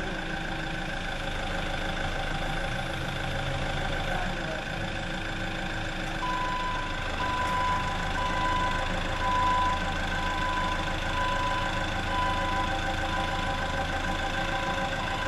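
Forklift engine idling steadily. From about six seconds in, its warning beeper sounds a short, high beep about once a second.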